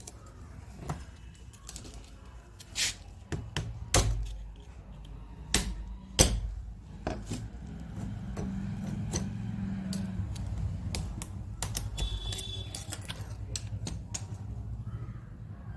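Irregular clicks and knocks of metal tool parts being handled, the loudest a few seconds in. A low steady hum joins from about halfway through.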